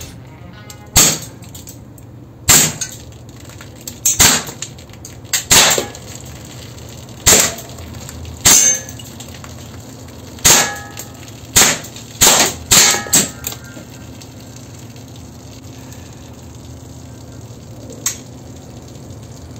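Gas-powered KWC M712 airsoft pistol firing 6mm steel BBs: about a dozen sharp pops, spaced a second or so apart, then four or five in quick succession. After a pause of several seconds comes one much fainter pop.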